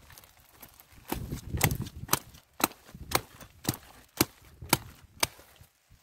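A white cabbage stalk being hacked through with a blade: a regular run of about eight sharp chopping strikes, roughly two a second, after a short rustle of the leaves being gripped.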